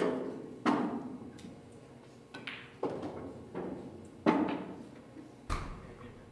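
Pool balls clacking during play: about seven sharp clicks of cue tip and balls striking, spaced irregularly, each with a short ringing tail. The last, about five and a half seconds in, comes with a dull low thud.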